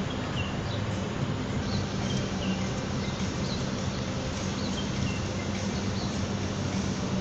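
Outdoor city ambience: a steady low hum with short bird chirps scattered through it.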